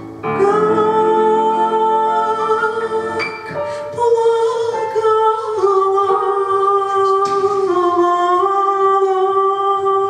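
A woman singing live into a microphone through PA speakers, holding long notes that step from one pitch to the next, with instrumental accompaniment.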